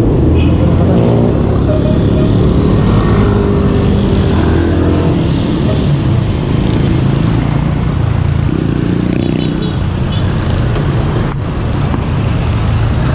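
Road traffic heard from a moving bicycle: the engines of cars and motorcycles running close by. A heavy low rumble lies under them throughout.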